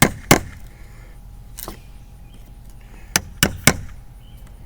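Sharp hammer blows on wood: two at the start, a single one a little later, then three quick blows near the end.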